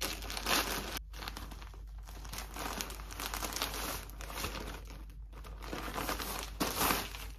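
Plastic packaging crinkling and rustling as a poly mailer is opened and a dress is worked out of a clear plastic bag, with louder crackles about half a second in and again near the end.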